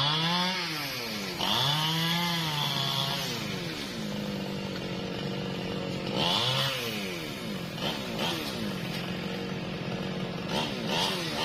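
New West 628 two-stroke chainsaw revved in short bursts, each climbing and falling in pitch, idling between them. The last few revs are only brief blips.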